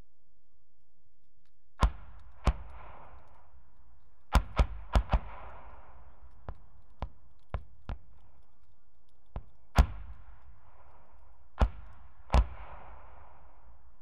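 81 mm medium mortar firing high-explosive rounds: about nine loud, sharp reports, some coming in quick clusters, each followed by a rolling echo, with several fainter, shorter reports in between.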